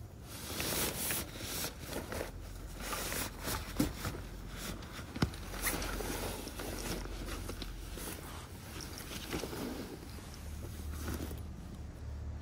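Fabric handling: a nylon case and a canvas bag rustling and scraping as a wooden tabletop is packed into the bag, with two sharp knocks about four and five seconds in.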